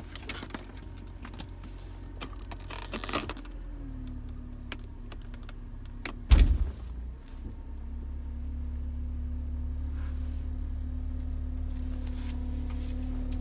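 Car running, heard from inside the cabin as it pulls away: a steady low engine hum that grows a little louder in the second half. Clicks and rustles of handling come in the first few seconds, and a single loud thump about six seconds in.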